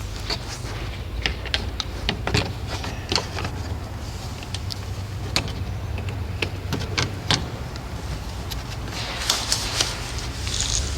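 Irregular sharp clicks and knocks of a cover being handled and fitted back into place in a car's engine bay, over a steady low hum.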